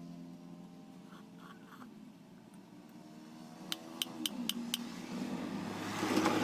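Five sharp metallic clicks in quick succession, about four a second, followed by a mechanical drone with a steady pitch that swells near the end.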